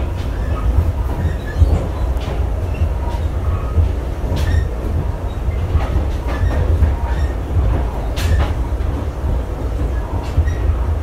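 Ride noise inside a moving passenger train coach hauled by a PNR CC300 diesel-hydraulic locomotive: a steady heavy low rumble of the running train, with occasional sharp clicks and knocks, the loudest about four and a half and eight seconds in.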